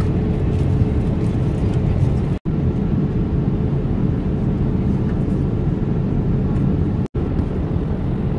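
Steady airliner cabin noise: engine and airflow rumble with a constant hum, heard from inside the passenger cabin. It drops out for an instant twice.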